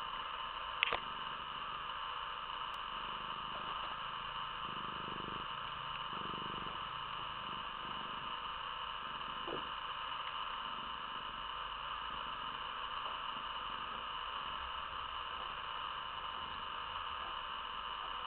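Steady electronic hiss with a faint constant hum: the recording's own background noise. A single short click about a second in.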